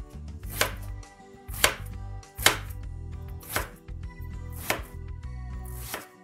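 Chef's knife chopping an eggplant into wedges on a bamboo cutting board: about five crisp cuts, roughly one a second, each ending in a knock of the blade on the board.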